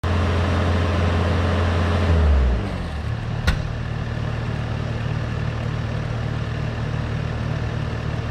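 A skid-steer loader's engine running at high revs, then throttled down to a lower, steady idle about two and a half seconds in, with one sharp click about a second later.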